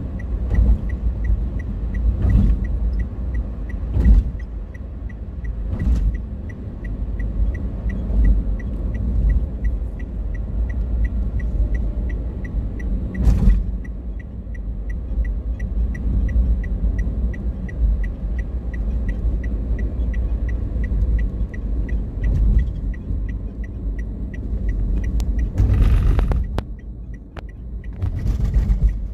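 Steady low road rumble heard inside a car's cabin as it drives along a concrete elevated toll road, made up of tyre and engine noise. A faint rapid ticking sits over it, with a few sharp knocks, the clearest about 4 and 13 seconds in.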